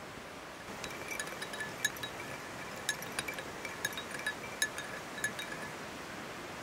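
Metal teaspoons clinking against small glass tea glasses as tea is stirred. Irregular light clinks with a short ringing tone start about a second in, over a steady background hiss.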